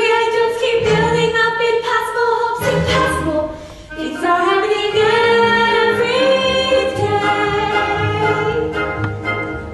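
Female voices singing a musical-theatre number in long held notes over instrumental accompaniment, with a brief drop in the sound about three and a half seconds in before the voices swell back.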